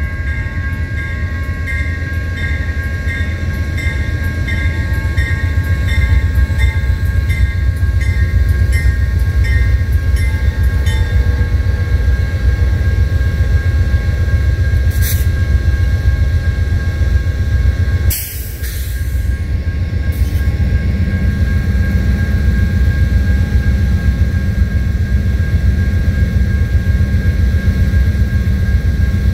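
Amtrak GE P42DC diesel locomotives standing at a station stop beside the crossing, running with a steady deep rumble. An electronic crossing bell dings rhythmically for about the first eleven seconds, then stops. There is a sharp click about fifteen seconds in and a loud burst of hiss about eighteen seconds in.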